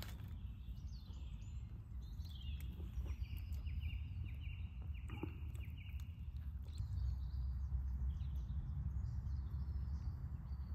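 Woodland songbirds singing, including one long song that runs into a rapid trill from about two to six seconds in, with shorter whistles and calls around it, over a steady low rumble.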